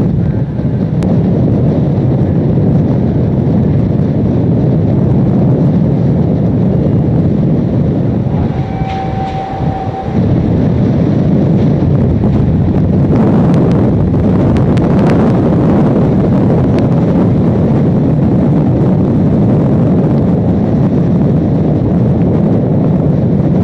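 Hurricane Katrina's winds blowing hard across the microphone in a loud, unbroken roar of gusts. A brief steady high tone sounds about a third of the way in, and a cluster of sharp rattles and clicks follows a little past halfway.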